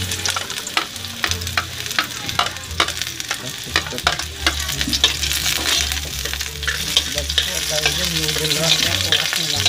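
Minced garlic sizzling in hot oil in a wok, with a metal spatula scraping and clicking against the pan as it is stirred.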